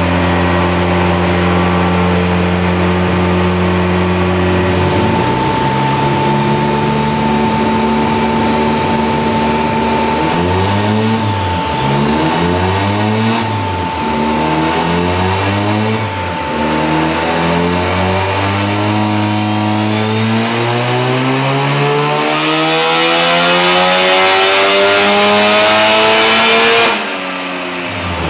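Mazda RX-3's rotary engine under load on a chassis dyno: it runs steadily for about five seconds, is revved up and down several times, then climbs through the revs in one long rising pull that gets louder and cuts off sharply near the end.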